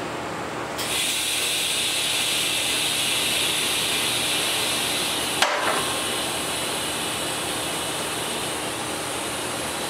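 TIG welding arc on stainless steel: a steady high hiss that starts about a second in, with one short sharp click about halfway through.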